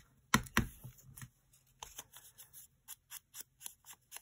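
A blending tool dabbed on an ink pad and against paper edges to distress them: a quick series of soft taps, about four a second, after a couple of louder knocks near the start.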